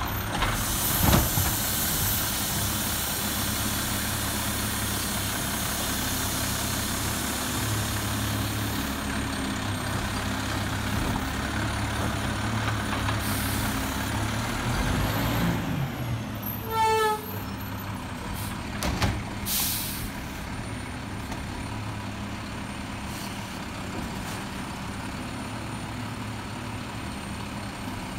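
Automated side-loader garbage truck's diesel engine running steadily under broad hiss, with sharp air-brake hisses around the middle as the truck stops and pulls ahead. Near the end the hydraulic side arm has lifted a cart to dump it.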